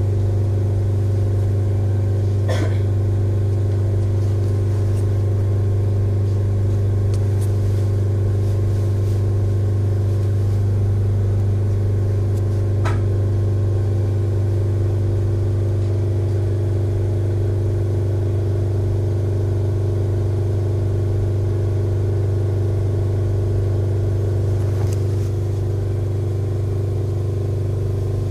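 Steady low hum inside a Kintetsu 3200 series electric train standing at a station before departure, from its running onboard equipment, with a few faint clicks.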